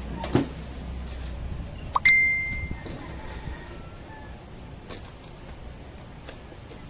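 A knock, then about two seconds in a sharp metallic clink that rings on briefly in one high tone before fading, with a few faint clicks afterwards: a metal object striking metal during work on the machine.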